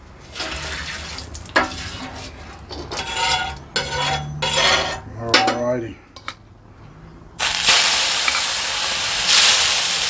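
Metal tongs and spatula clinking and scraping, then about seven seconds in a sudden loud, steady sizzle as two thick rump cap (picanha) steaks are laid on a searing-hot gas barbecue hotplate.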